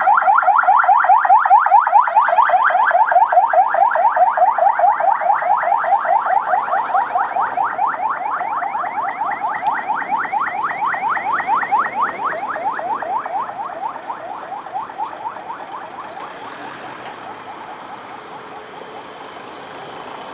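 Electronic siren yelping: quick rising sweeps, about five a second, loud at first and fading away over about fifteen seconds.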